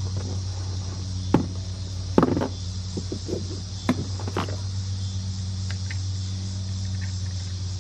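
Parts of a folding polypropylene kayak being handled: a few sharp knocks and short rattles in the first half. Under them runs a steady low hum and a high, constant insect buzz.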